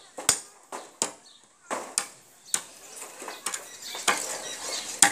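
A curved machete (dao) chopping green bamboo: about nine sharp, irregularly spaced knocks of the blade striking the culm.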